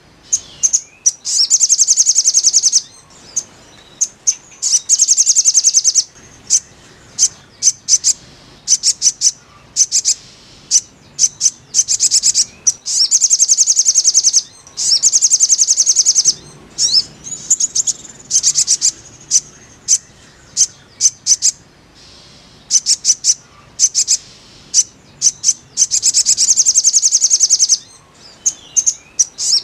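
Little spiderhunter (sogon) song: rapid high-pitched trills of closely repeated notes, each lasting a second or two, alternating with single sharp chirps.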